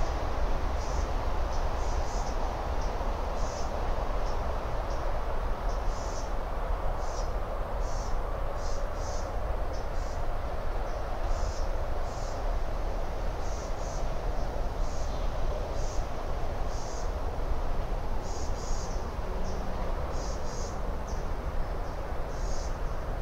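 Outdoor ambience at the webcam microphone: a steady low rumble of background noise, with short high chirps coming irregularly, about one to three a second.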